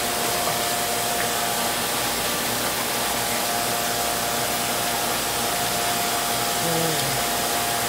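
Steady hiss with a constant hum running under it, the sound of saltwater aquarium pumps and filtration.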